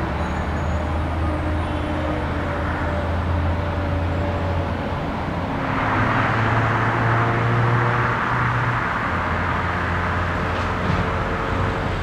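Steady low engine drone with outdoor background noise. About six seconds in, a louder rushing noise joins it.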